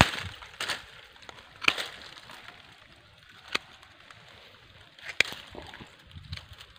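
Scattered sharp clicks and snaps, a second or more apart, with the loudest at the very start. They come from pruning shears snipping thin dry bamboo stems and from the stems and dry leaves being handled.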